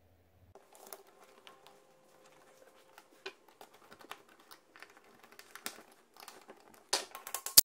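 Hand screwdriver driving a screw to fasten a black-painted clamp onto a wooden pen block: scattered small clicks and scrapes of the screw and tool, with a louder cluster of clicks just before the end.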